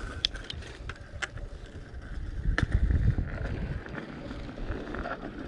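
Bicycle rolling over pavement, with wind buffeting the microphone, loudest about halfway through, and a few sharp clicks.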